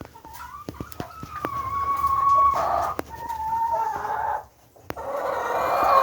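Egg-laying hens calling: two long, drawn-out calls in the first half, then a harsher, rougher call near the end, with scattered light clicks.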